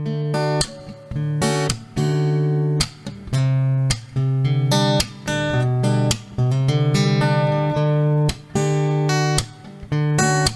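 Background music led by guitar, with a quick run of plucked and strummed notes.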